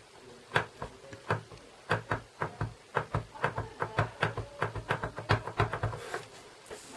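A rubber-stamping stamp being tapped over and over onto an ink pad to ink it: about two dozen quick, light, uneven taps, a few per second, stopping about six seconds in.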